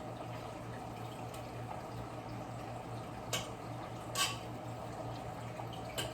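Pot of pasta water boiling steadily on the stove over a steady low hum, with three light clicks in the second half.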